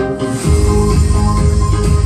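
Music played back through a Partyhouse DAK-3000 digital karaoke reverb mixer that has a 'sôi tiếng' fault, a frying, boiling noise in its output. A heavy bass comes in about half a second in.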